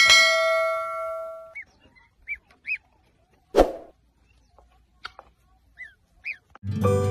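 A bell-like notification chime rings at the start and fades over about a second and a half. Then a yellow waterfowl chick peeps in short, rising-and-falling chirps, about six times, with one brief louder noise in the middle.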